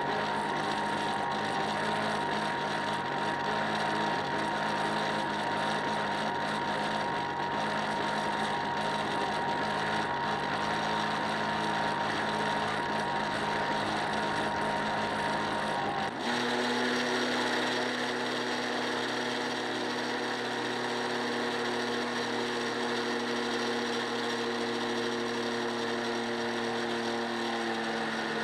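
A motor running steadily with a constant whine. About sixteen seconds in, its sound changes abruptly to a different steady pitch.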